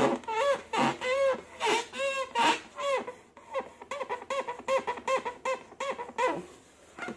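Rubber balloon squeaking: a quick run of short squeaks that rise and fall in pitch, about two a second at first and about three a second in the second half.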